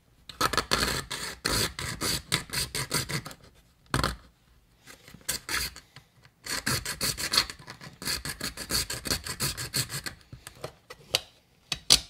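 A T-shank jigsaw blade, hand-held in a Leatherman multitool, sawing into a plastic part in quick back-and-forth strokes. The strokes come in two bouts, with a pause and a single click in between about four seconds in. The wood-cutting blade is probably too rough for the plastic.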